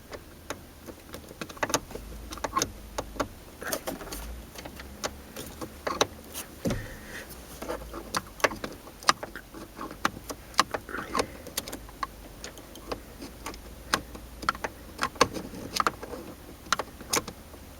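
Irregular clicks, taps and rattles of a tool and the dangling key ring working at the ignition lock cylinder of a 2003 Mercury Sable steering column, as the release pin is pushed in and the cylinder is worked loose.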